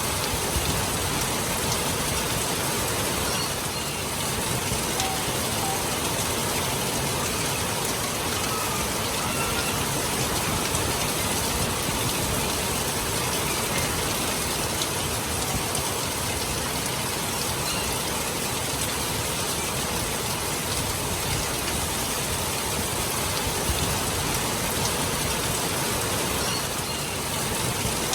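Steady rain falling, an even hiss and patter that keeps the same level throughout.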